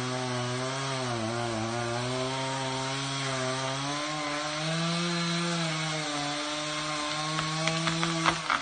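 Chainsaw running steadily under load while cutting through a birch trunk, its pitch dipping briefly about a second in. Near the end the engine drops off and several sharp cracks sound.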